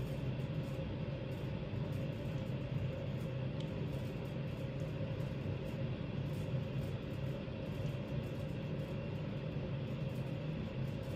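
Steady low background rumble with a hum, unchanging throughout.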